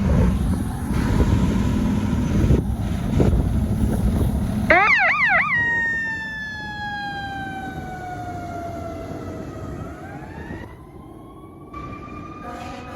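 Fire truck responding: heavy engine and road rumble for the first few seconds. About five seconds in comes a brief rapid electronic yelp of the siren. Then a siren wail slowly falls in pitch and winds back up near the end.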